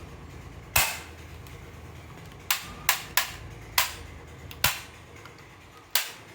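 Toy revolver firing seven sharp, cracking shots at uneven intervals, with three coming in quick succession a little past two and a half seconds in.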